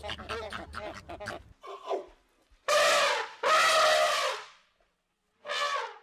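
A flock of flamingos gabbles in rapid, repeated honking calls for the first second and a half. Then an African elephant trumpets: two loud calls, the second one longer, and a shorter one near the end.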